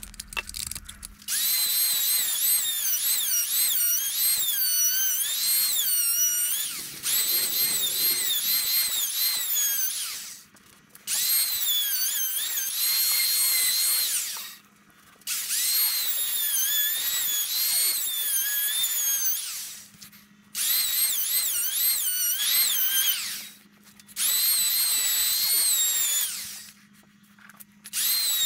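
Handheld electric power tool working rough-cut timber: a high motor whine in six runs of a few seconds each, with short pauses between. Its pitch sags and recovers as the tool loads up in the wood.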